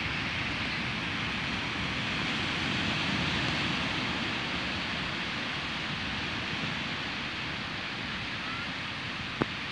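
Low waves breaking and washing up a sandy beach: a steady rush of surf that swells a little a few seconds in. A brief click near the end.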